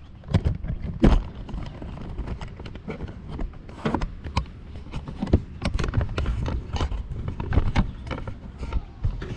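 Irregular knocks, taps and rubbing from a phone camera being handled and set up, over a low rumble.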